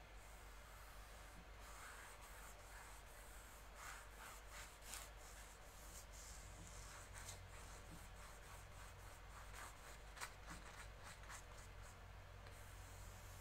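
Faint, irregular scratchy strokes of a paintbrush working paint onto a canvas, over a low steady hum.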